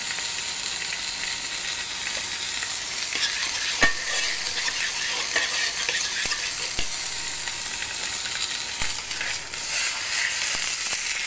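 A thick veal chop searing in hot oil in a stainless steel sauté pan: a steady, high sizzle with a few small crackles and one sharp click about four seconds in. The sizzle grows livelier near the end, as the chop is lifted and turned to sear the other side.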